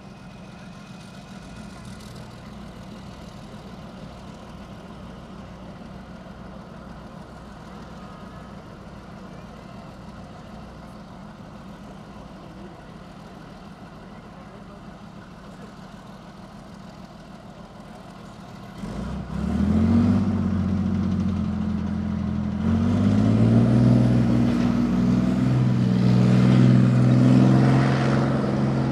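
Leopard 2 tank's MTU V12 diesel idling steadily, then revving up loudly about two-thirds of the way through as the tank pulls away, its pitch climbing again a few seconds later as it drives off.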